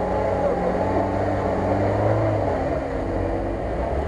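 Engine of a Lada Niva 4x4 running steadily, its pitch shifting slightly, while the vehicle sits stuck in deep mud and water.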